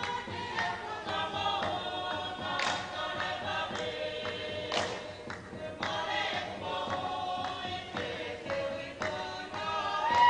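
A group of voices singing together in a chant-like song, holding and changing notes in unison, with two sharp, noisy accents about three and five seconds in.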